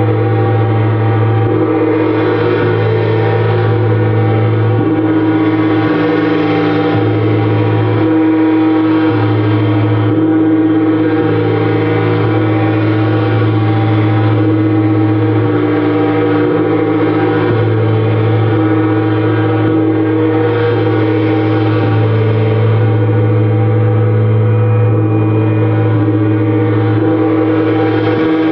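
Gongs played continuously in a sound bath: a dense, sustained wash of overlapping ringing tones over a deep hum, the upper shimmer swelling and ebbing every few seconds.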